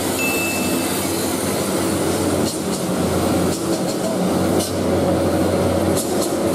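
Heavy diesel truck engines running on a steep uphill grade, a steady low drone. A short high whistle sounds near the start.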